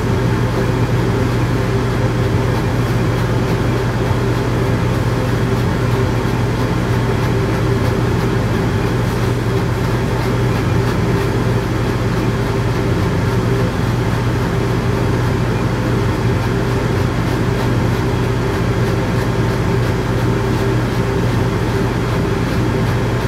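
Steady low machinery hum with a rush of air, unchanging throughout.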